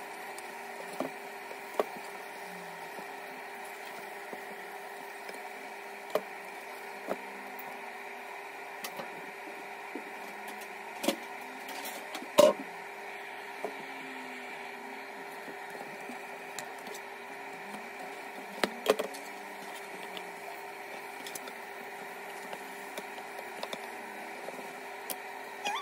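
Spatula clicking and knocking against a non-stick frying pan while a spinach omelette cooks, over a steady background hum. The knocks come irregularly, with one louder knock about halfway through.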